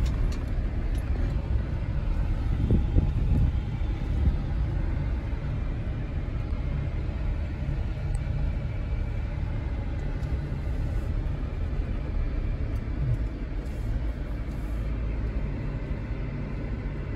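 Jeep driving slowly up a loose volcanic-cinder trail, heard from inside the cab: a steady low rumble of engine and tyres on the cinders, with a brief louder bump about three seconds in.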